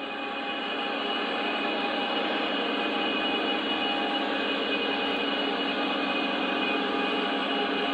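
Model train of covered coal hopper cars, hauled by a Burlington Northern diesel locomotive model, running along layout track with a steady, even rolling rumble.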